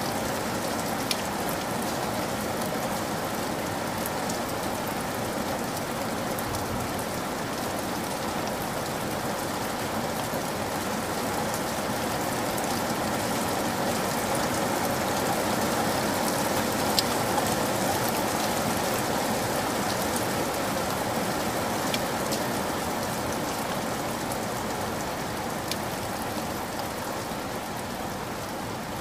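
Steady rain falling, a constant even hiss with a few sharp drop clicks here and there. It swells slightly midway and eases a little near the end.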